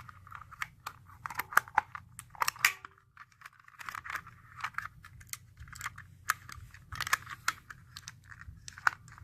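A small plastic surprise packet being crinkled, pulled and torn at while someone struggles to open it: a run of irregular crackles and sharp clicks, with a short lull about three seconds in.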